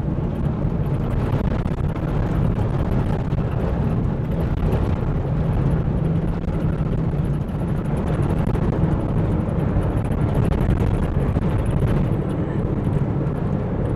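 An old car driven hard on a dirt road, heard from inside the cabin: a steady, loud engine and road rumble with a constant rough, jolting texture.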